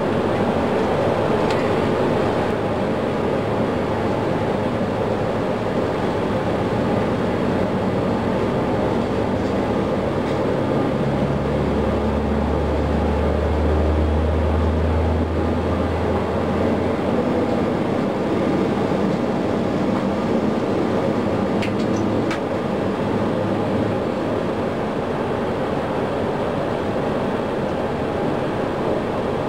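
Boeing 737 jet engine noise during an engine start: a steady rush as the starter slowly turns one engine up while the other engine is already running. A low hum swells for several seconds in the middle.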